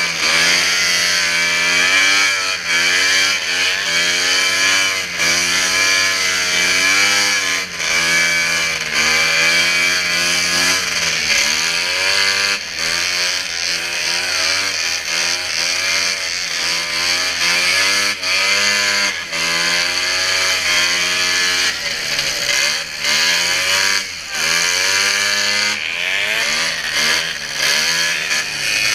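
Two-stroke racing snowmobile engine running hard, its pitch climbing and dropping again every second or so as the throttle is worked on and off.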